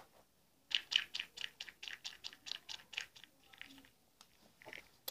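Makeup powder brush worked in quick, even scratchy strokes, about six a second, for a couple of seconds, with a few more strokes near the end.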